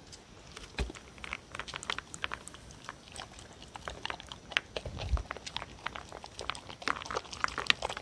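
Dogs eating dry kibble mixed with squid, beef and egg from a plastic tray: a steady, irregular run of crunching bites and chewing clicks, with a dull knock about five seconds in.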